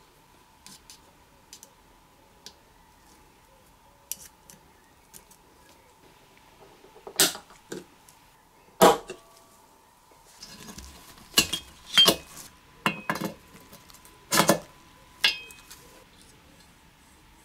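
Small metal parts and hand tools clicking and clinking against an aluminium piston and its wrist pin circlip, while the circlip is worked in the pin bore with a pick: scattered light ticks at first, then a run of sharper, louder clinks in the second half. A faint steady hum sits underneath.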